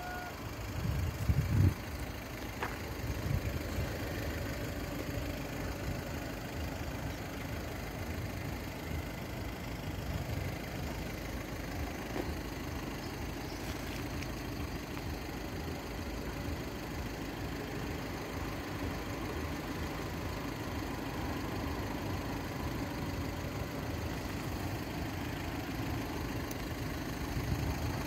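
A steady low rumble, with a few louder low thumps about a second in.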